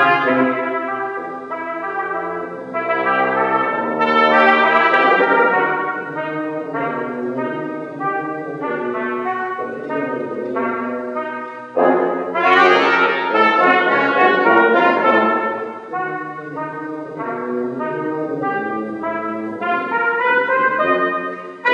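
Music led by brass instruments, playing a melody of held notes that change step by step, with a louder phrase coming in about halfway through.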